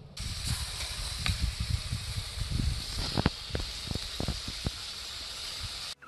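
Wood fire burning in an outdoor brick barbecue grill: a steady hiss of flames over a low rumble, with sharp crackles and pops from the burning sticks, cutting off suddenly near the end.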